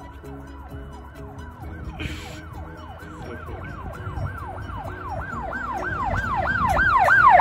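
Siren in a fast yelp, about three rise-and-fall sweeps a second, growing louder toward the end.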